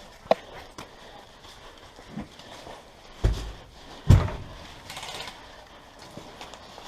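A few scattered knocks over a faint background: a short sharp one just after the start, then two heavier thumps about three and four seconds in.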